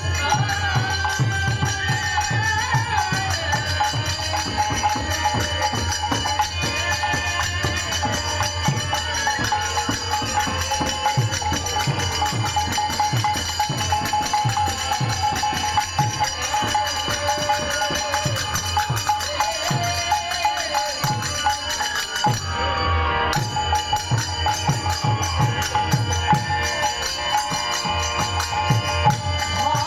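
Bengali devotional kirtan music: jingling hand cymbals and regular drum strokes under a held melody line. The cymbals stop briefly about three quarters of the way through, then resume.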